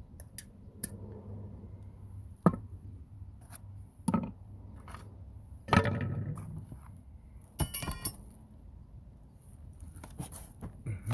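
Metal hand tools being handled: several separate clanks and knocks, with one bright ringing metallic clink about eight seconds in, over a low steady rumble.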